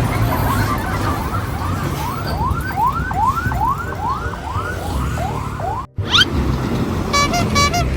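Electronic siren in fast yelp mode, its pitch sweeping up and down about three times a second over a steady low rumble. It cuts off suddenly about six seconds in, and a few short honk-like tones follow near the end.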